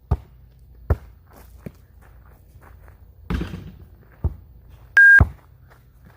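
A basketball bouncing with separate thumps about a second apart, a brief noisy clatter a little past three seconds in, then a short, loud single-tone beep about five seconds in.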